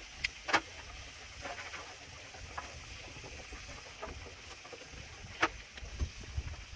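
Food sizzling quietly on a Blackstone gas griddle, with a few sharp metal clicks of cooking utensils: two near the start and one more later on.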